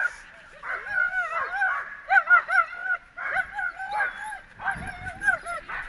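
A dog whining and yelping in a string of high, wavering cries, restless and worked up. Rustling and knocks come in near the end.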